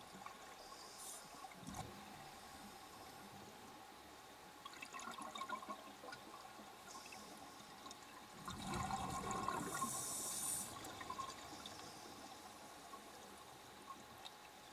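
Scuba diver's exhaled bubbles bubbling underwater, faint, with a louder rush of bubbles about nine seconds in.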